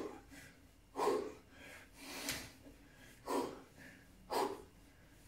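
A man breathing hard from exertion while holding a prone back-extension exercise: five short, forceful breaths, about one a second.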